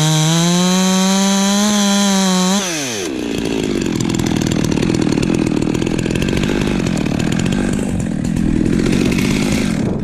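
Chainsaw engine at high revs, then its pitch drops sharply about two and a half seconds in as the saw goes into a rough, noisy cut through wood that lasts until near the end.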